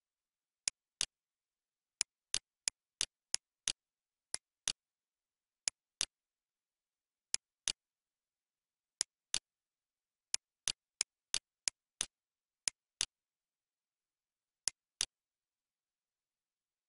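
Computer mouse button clicking, sharp single clicks often coming in pairs, with quick runs of clicks around 2 to 4 seconds in and again around 10 to 13 seconds in, stopping about 15 seconds in.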